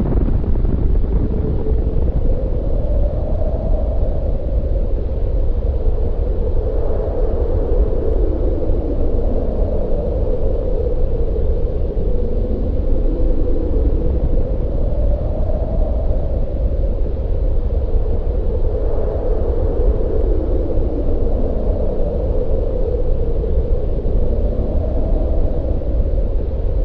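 Deep, continuous rumble under a howling, wind-like tone that slowly wavers up and down in pitch.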